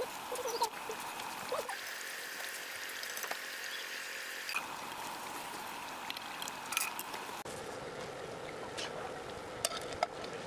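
Samosas deep-frying in hot oil: a steady sizzle with many small scattered pops. The sound changes abruptly a few times.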